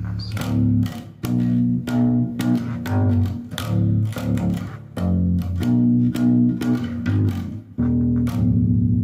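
Instrumental rock music: an electric bass guitar plays a riff of changing low notes over sharp, regular drum hits, with no vocal.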